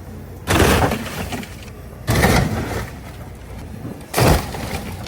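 A junked car body taking three heavy crunching blows, about a second and a half apart, the middle one building up a little before it hits.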